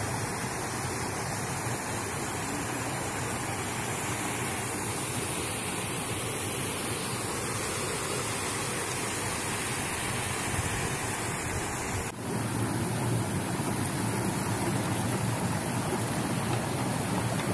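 Steady rushing of a shallow stream flowing over rock. The sound breaks off for a moment about twelve seconds in, then carries on a little louder.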